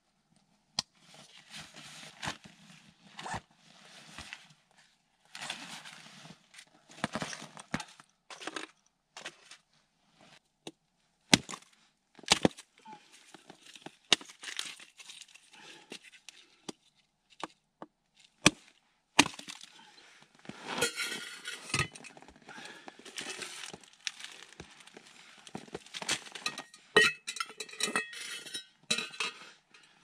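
Dry sticks snapping and clattering as kindling is broken and laid in a small fire pit, a string of sharp cracks and clicks among rustling and crunching of clothing and snow. In the last third there are denser scrapes and light metallic clinks from a metal cup being handled.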